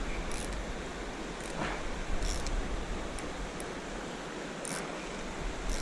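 Steady rushing outdoor noise with a strong low rumble, with a few faint, short high-pitched clicks scattered through it.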